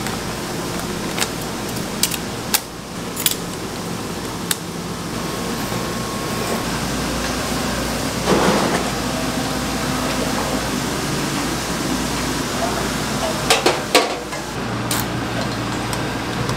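Busy kitchen clatter: scattered sharp knocks and clinks over a steady hum of background noise, with a brief noisy burst about halfway through and a quick cluster of knocks near the end.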